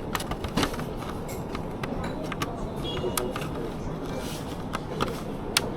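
Steady background noise with scattered light clicks and taps, like small parts or tools being handled, and some voice.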